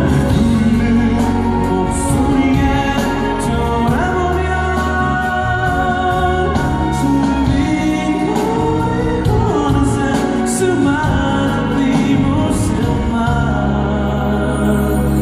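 Live concert music: a male singer's voice over a full band with a steady bass line, heard from the stands of an indoor arena.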